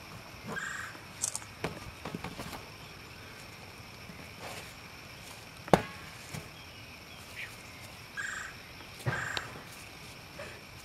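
Scattered knocks and scuffs as a donkey bumps and mouths a large inflatable ball and shifts its hooves on leaf-littered dirt, with one sharp slap about halfway through as the loudest sound.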